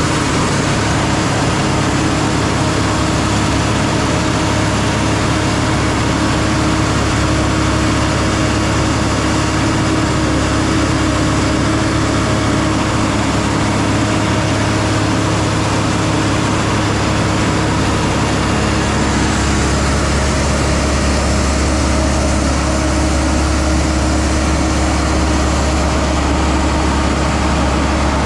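Heavy engine running steadily and loudly. About two-thirds of the way through, its low note drops.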